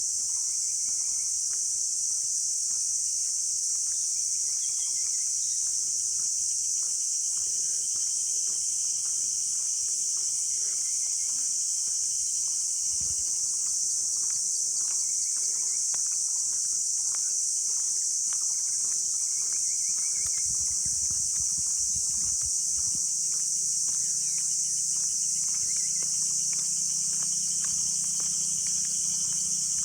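Steady, high-pitched drone of an insect chorus, with faint irregular ticks underneath; a faint low hum comes in about two-thirds of the way through.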